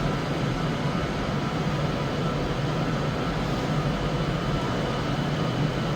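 A pair of ScotRail Class 156 diesel multiple units running their underfloor diesel engines as they pull out of the station: a steady low drone.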